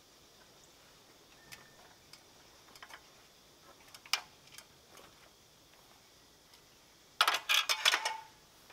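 Scattered light clicks and knocks, then about a second of rapid loud clattering starting about seven seconds in.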